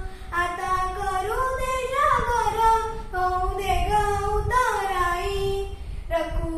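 A girl singing a Marathi devotional song to Vitthal solo, with no accompaniment, in long held phrases broken by short pauses for breath.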